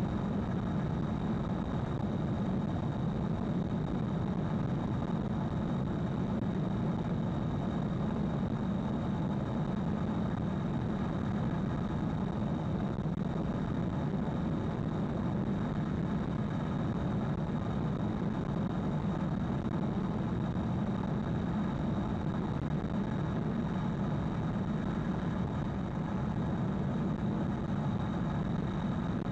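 Steady road and tyre rumble inside the cabin of a 2020 Hyundai Ioniq Electric cruising at expressway speed, with no engine note since the car is electric. A thin, steady high tone runs above the rumble.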